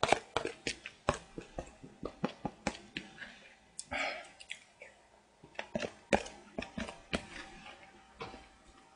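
Wooden chopsticks clicking against a plastic bowl in quick, uneven taps as food is shoveled from the bowl into the mouth, with chewing between the taps.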